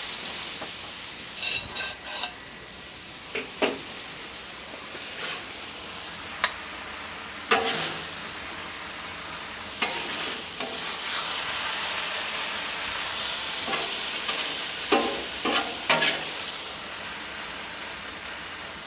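Beef and broccoli sizzling on a Blackstone flat-top griddle, a steady frying hiss, with a metal spatula scraping and clacking against the steel cooktop every few seconds as the food is stirred and gathered.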